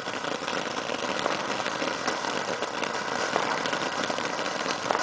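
Barrel fountain firework erupting: a steady rushing hiss of spraying sparks with scattered crackles and pops.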